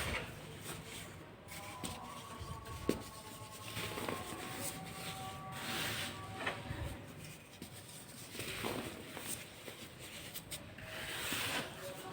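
Lumps of dried baking soda crumbled and rubbed between fingers: soft, dusty crunching and rustling in repeated swells, with a few brief sharp crackles.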